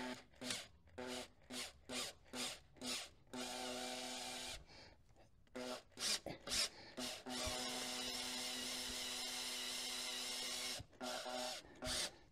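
Cordless drill spinning a left-hand drill bit into a broken steel camshaft cap bolt set in an aluminum cylinder head, to bite the bolt and back it out. The trigger is pulsed in many quick short bursts, with a steady run of about a second early on and a longer steady run of about three seconds in the second half, then short bursts again near the end.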